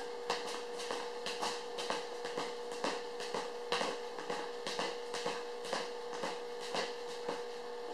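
Dance steps: shoe soles tapping and scuffing on a concrete floor in a quick, uneven rhythm of about two to three steps a second.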